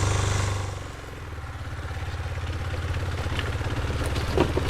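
Motorcycle engine running at low revs on rough ground. The throttle eases off about half a second in, then the engine slowly picks up again, with a short knock near the end.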